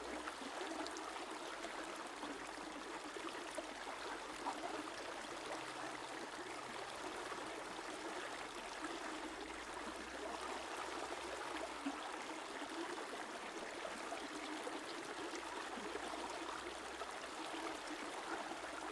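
A river flowing steadily, the even babble of running water.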